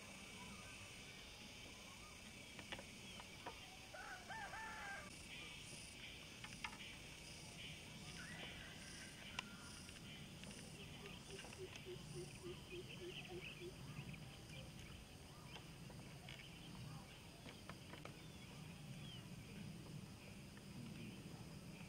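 Faint outdoor ambience with a steady high hiss, a rooster crowing once about four seconds in, and a run of about eight short low notes a little past the middle. Scattered faint clicks run through it.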